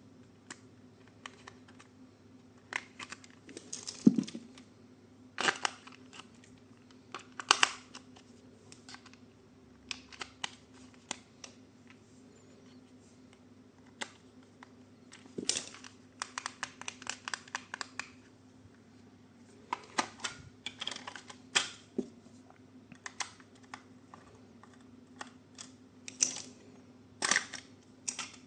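Hands handling a toy and its packaging: irregular clicks, taps and short rustles of plastic and cardboard, with a dull knock about four seconds in.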